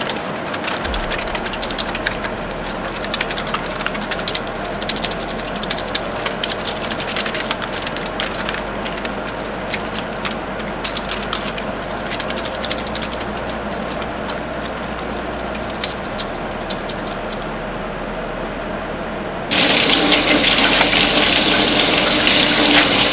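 Soapy hands being rubbed together, a wet squishing with many small clicks; about nineteen seconds in, a faucet is turned on and water runs hard into a stainless steel sink as the lather is rinsed off.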